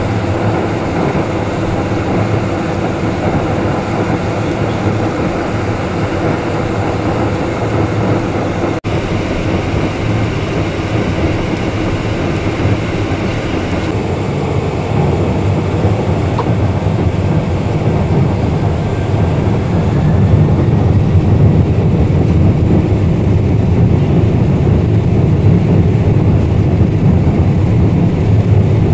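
Cabin noise inside a Boeing 747-400: a steady rumble of the four jet engines and the airframe, with a brief break about nine seconds in. Roughly two-thirds of the way through it grows louder and deeper.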